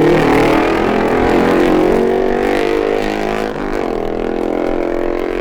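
Racing motorcycle engines at speed going by, their note falling slowly, heard on an old vinyl record.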